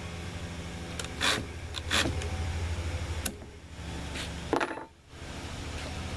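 Four sharp clicks and knocks of a small tool and an Echo CS-355T top-handle chainsaw being handled on a wooden table, over a steady low hum.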